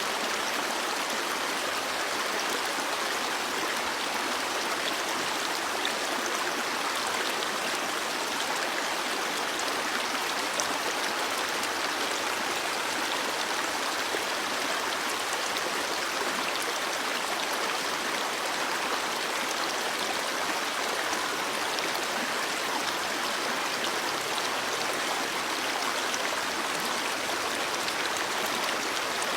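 Stream water flowing steadily, an even, unbroken babble of running water.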